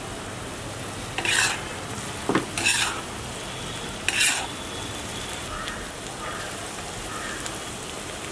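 Chopped onions and cumin seeds frying in oil in a large pan with a steady sizzle, stirred with a spatula that scrapes the pan three times in the first half.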